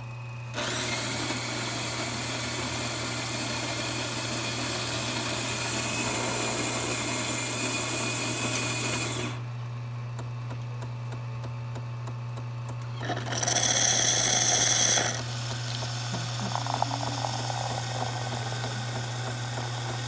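Jura Impressa S9 automatic espresso machine working through a cappuccino cycle. A low hum runs throughout, with a motor running for about the first nine seconds. About thirteen seconds in there is a loud high hiss of steam for about two seconds, followed by the milk frother spurting foam.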